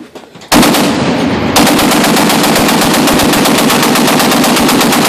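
Fully automatic machine-gun fire in one sustained burst that starts suddenly about half a second in, fills out about a second later, and continues at roughly ten rounds a second.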